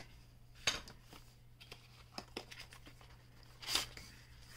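Paperboard packaging being handled, with a few short rustles and scrapes as the inner box slides out of its printed sleeve; the loudest scrape comes near the end.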